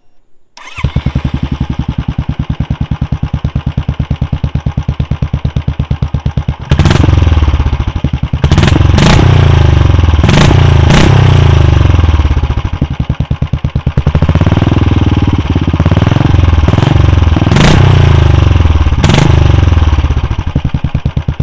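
Royal Enfield Classic 350 BS6 single-cylinder engine through an aftermarket megaphone silencer, started just under a second in and idling with an even thump. From about seven seconds in it is revved repeatedly, the revs rising and falling, with several sharp pops, and it eases off near the end.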